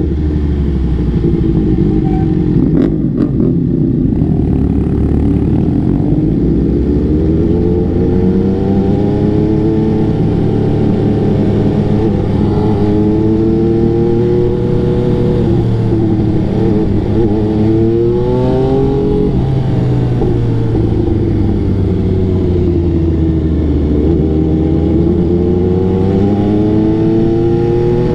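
MV Agusta F3's inline three-cylinder engine, heard on board while riding in town. The engine pitch climbs as it accelerates and drops as the throttle rolls off, several times over.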